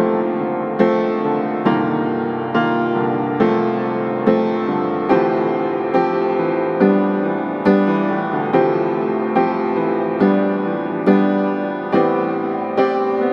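Background music: a gentle piano piece with a steady pulse of notes struck a little faster than one a second.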